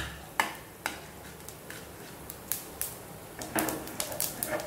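A metal spoon stirring and knocking against a metal kadai as chana dal, urad dal and black mustard seeds fry in a little oil: scattered sharp clicks and scrapes, with small pops of the mustard seeds crackling.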